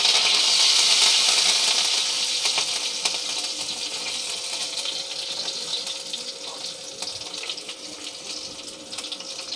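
Fresh curry leaves sizzling in hot oil in a kadai with cumin seeds and green chillies. The hiss is loudest just after they go in and fades steadily as they crisp, with the mixture stirred near the end.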